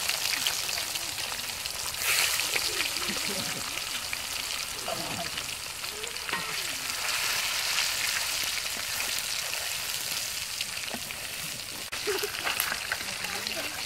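Whole fish deep-frying in bubbling hot oil in an iron karahi, a steady high sizzle, with a metal spatula stirring and turning them in the pan.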